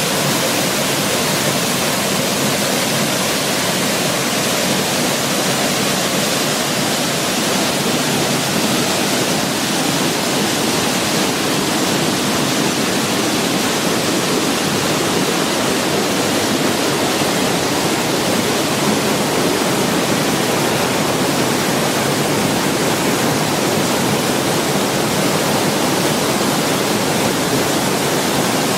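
Waterfall: a loud, steady rush of falling water, unbroken throughout.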